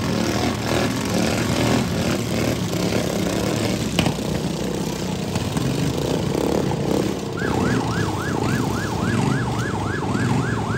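Several modified riding lawn mower engines running and revving together, with a single sharp knock about four seconds in. From about seven seconds a siren yelps over them in quick rising-and-falling sweeps, about four a second.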